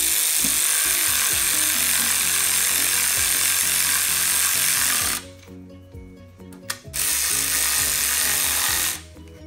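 Air ratchet with an 11/16 socket spinning nuts down onto the exhaust-manifold studs of a Detroit Diesel 8V71, run just until they are slightly snug: a steady loud hiss for about five seconds, a pause, then a shorter burst of about two seconds.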